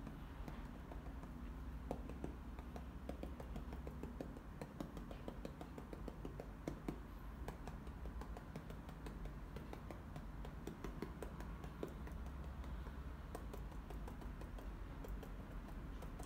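Acrylic paint being dabbed onto a canvas with a small paint dauber: many quick, light, irregular taps in runs with brief pauses, over a steady low background hum.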